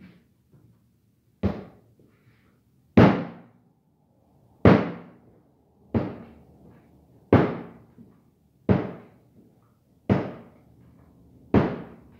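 Pandesal bread dough being kneaded by hand on a tabletop: a heavy thump about every one and a half seconds, eight in all, each time the dough is pushed down against the table.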